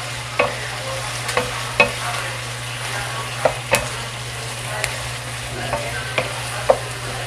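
Chicken pieces sizzling in a frying pan while a wooden spatula stirs them, with sharp taps and scrapes of the spatula against the pan coming irregularly, about every half second to second. A steady low hum runs underneath.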